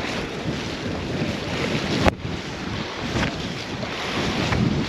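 Wind buffeting the microphone over water, a steady rushing noise, with one sharp click about two seconds in.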